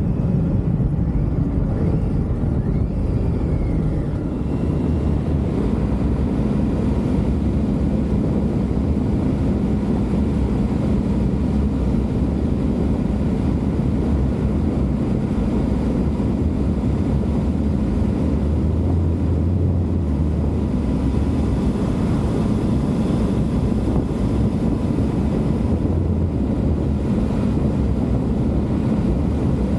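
Triumph Tiger motorcycle running steadily while being ridden, its engine a continuous low drone, with wind noise on the microphone.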